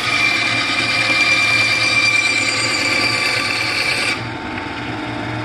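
Bandsaw blade cutting through a wooden board along a drawn letter line, a steady rasping cut with a high whine over the motor's low hum. About four seconds in the cutting noise stops and the saw runs on alone.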